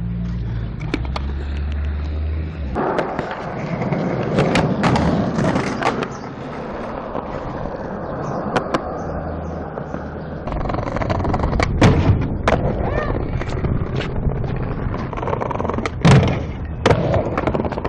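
Skateboards rolling on concrete, with repeated sharp clacks of tail pops and landings. Near the end the trucks scrape along a ledge in a 50-50 grind, with a loud impact.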